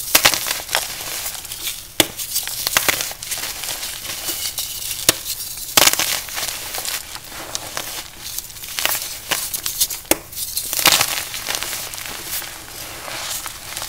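Crumbly powder blocks being crushed, giving dense, irregular crisp crunches and crackles.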